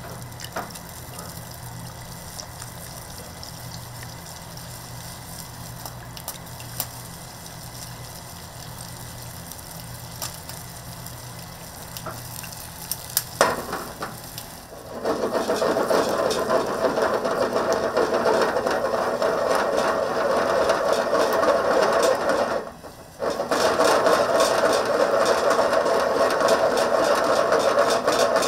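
Steady kitchen hum, then about halfway a much louder, steady whirring noise of running kitchen equipment that breaks off briefly a few seconds before the end.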